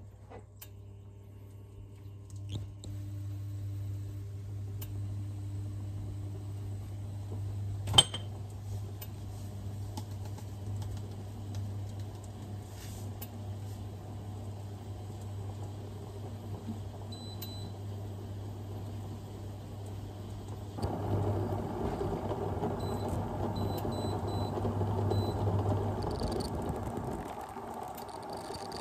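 Induction hob humming steadily while breaded fish fillets fry in a covered pan. A single sharp knock about eight seconds in, then a louder, rougher stretch of noise from about 21 seconds before the hum stops about 26 seconds in.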